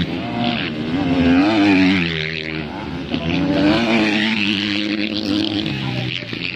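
250cc motocross bike engines revving hard as the bikes race past, the pitch climbing and dropping again and again with throttle and gear changes.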